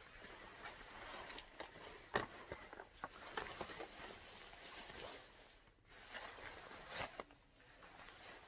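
Faint rustling of synthetic-fabric garments being handled and unfolded over a cardboard box, with scattered light knocks. There is a louder rustle about two seconds in and another near the end.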